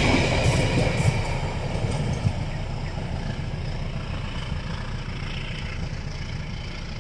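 Passenger train's carriages rolling away down the track, the low rumble of steel wheels on the rails fading steadily as the train recedes, with a few faint clicks from the wheels early on.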